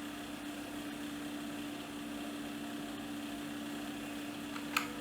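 Steady electrical hum and hiss with one steady low tone, and a single mechanical keyboard key click near the end.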